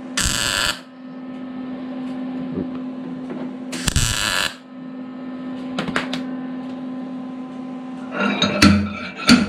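Homemade dent puller working a dent out of a car's sheet-metal rear quarter panel: a steady electrical hum, with two short harsh buzzing bursts about four seconds apart. Near the end comes a clatter of metal knocks as the dent is pulled and pops out.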